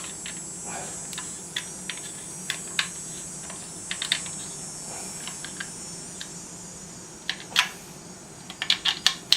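Irregular metallic clicks and clinks of a hex wrench and socket wrench working on the nuts of the stand's wheel bolts as they are tightened, some in quick clusters, over a steady low hum.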